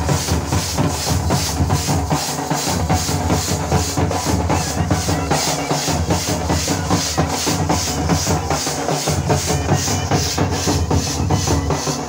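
A band of large double-headed dhol drums and hand cymbals plays a fast, steady rhythm, the cymbals clashing about two to three times a second over the deep drum beats.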